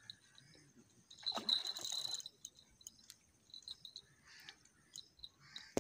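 A hooked fish splashing at the water's surface while it fights the line, one splash of about a second starting about a second in.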